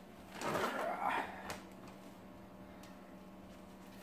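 A brief soft rustle of movement about half a second in, then quiet room tone with a steady low electrical hum.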